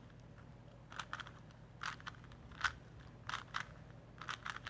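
Plastic Rubik's Cube faces being twisted by hand: short clusters of clicks and clacks, about five bursts a little under a second apart.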